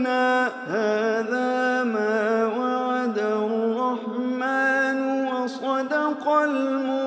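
Male voice chanting Quranic recitation in a drawn-out melodic style, holding long notes that bend and glide in ornament, with short breaks for breath.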